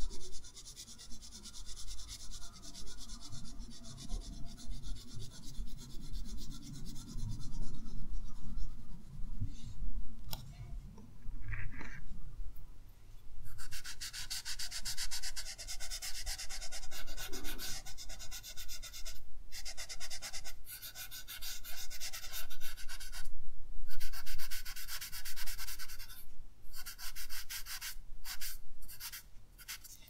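Graphite pencil shading on drawing paper, then, about halfway through, a cotton swab rubbing over the paper to blend the graphite: a fast, fine, scratchy rubbing that runs in stretches with short pauses.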